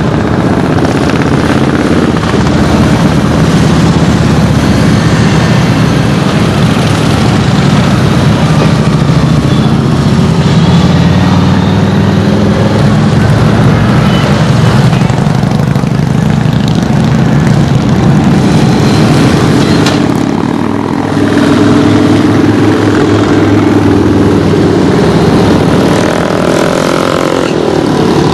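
A line of big touring and cruiser motorcycles riding past one after another, their engines a continuous loud rumble. The sound eases briefly about two-thirds of the way through, then swells again as the next bikes come by.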